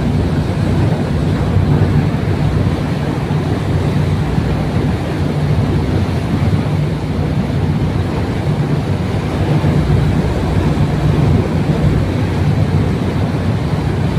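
Tugboat under way: the engine drones steadily and low, under the constant rush of propeller wash churning behind the stern.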